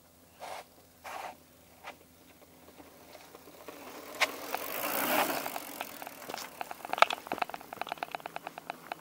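Mountain bike rolling down a dirt trail and passing close by, its tyres on the dirt swelling to their loudest about five seconds in, after three short scuffs near the start. Then a rapid ticking, about ten clicks a second, typical of a bike's rear freehub while coasting.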